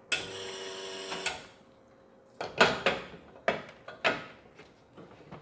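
A motor in the espresso setup runs steadily for about a second, then about six sharp clacks and knocks follow as espresso gear is handled for a double shot.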